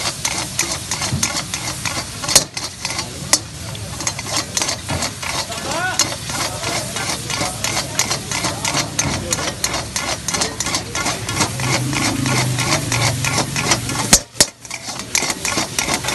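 Flat metal spatula scraping and clanking quickly against a large metal wok, several strokes a second, while chicken jalfrezi sizzles in the hot pan; a few harder clangs stand out.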